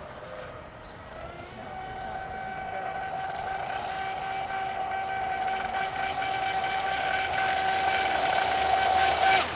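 Brushless electric motor of an RC offshore twin-hull racing boat whining at a steady high pitch under throttle. The whine grows louder as the boat runs closer, then drops off just before the end.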